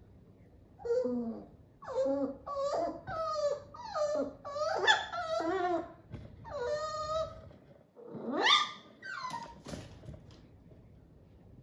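A woman fake-crying in staged distress: a run of whimpering sobs, each falling in pitch, then a rising wail about eight seconds in. The cries start about a second in and stop a little before the end.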